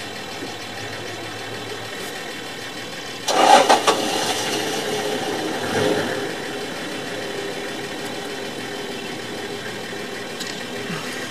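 Vehicle engine idling steadily, with a sudden louder burst of noise about three seconds in that stays up until around six seconds, then settles back to the idle.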